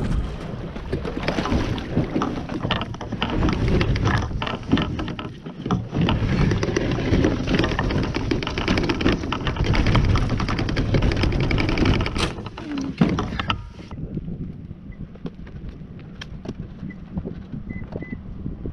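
A loaded plastic fishing kayak's hull scraping and grinding as it is dragged over gravel and up a grooved concrete boat ramp, a rough rumble full of small crackles and knocks picked up through the kayak itself. The dragging stops about 14 seconds in, leaving quieter background with a few faint ticks.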